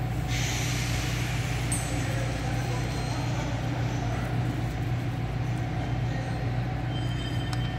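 Steady low hum of running machinery, with a brief hiss about a quarter second in and a faint metallic ring and click near the end.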